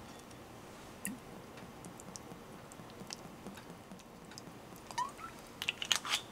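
A few light clicks as a rosemary sprig is set into a glass jar of dried tomatoes, then olive oil poured into the jar, with a short rising gurgle and a quick run of sharp little clicks and pops near the end.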